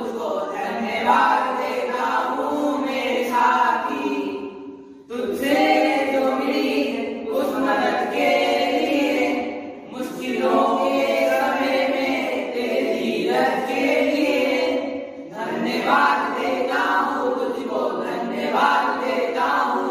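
A small group of boys singing a song together without any accompaniment, in phrases broken by short pauses about 5, 10 and 15 seconds in.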